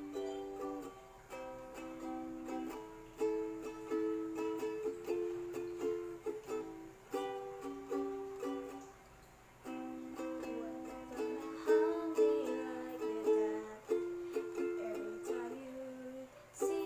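Background music led by a plucked string instrument playing a steady run of notes.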